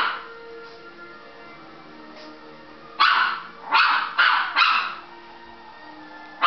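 Chihuahua barking at the television: one bark right at the start, a quick run of four barks about three seconds in, and another at the very end. Soundtrack music from the TV plays underneath between the barks.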